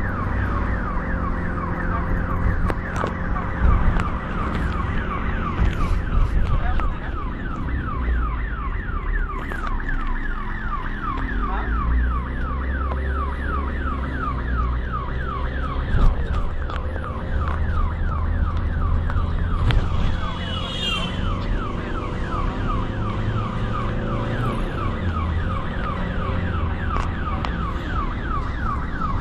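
Ambulance's electronic siren sounding continuously, a fast falling sweep repeating a few times a second, heard from inside the moving ambulance over the low rumble of the engine and road.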